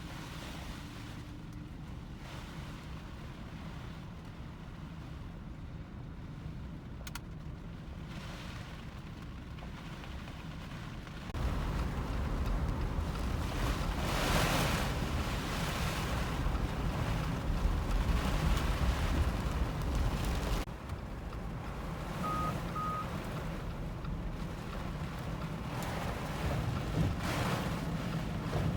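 Storm wind rushing and buffeting the microphone, a steady low roar with no voices. It jumps sharply louder about eleven seconds in and eases somewhat about ten seconds later.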